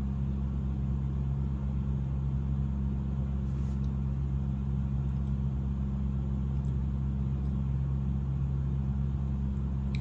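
Steady low mechanical hum, unchanged throughout, with a faint click near the end.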